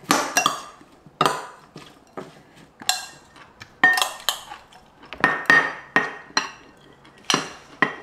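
Metal spoon clinking and scraping against a glass mixing bowl while tossing broccoli, then knocking on the bowl's rim and the glass storage container as the salad is spooned in. There are about a dozen irregular sharp clinks, some with a brief glassy ring.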